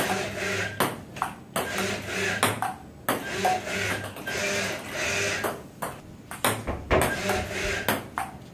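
Table-tennis rally between a person and an industrial robot arm: the celluloid ball clicks sharply again and again off the paddles and the table. Between hits there is a whirring hum with a noisy hiss as the arm's motors drive it through its swings.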